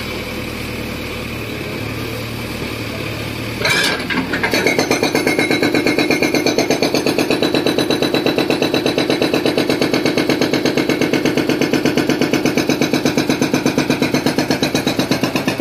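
Hydraulic breaker on a JCB backhoe loader: the diesel engine runs steadily, a knock comes about four seconds in, and then the breaker hammers rapidly and evenly at about eight blows a second against concrete.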